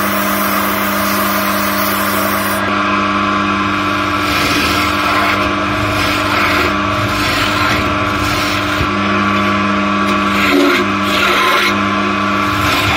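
Wood lathe running with a steady motor hum while the spinning linden workpiece is worked. For the first couple of seconds sandpaper is held against it with a smooth hiss, then a turning chisel hollows the end grain with a rough, scratchy scraping.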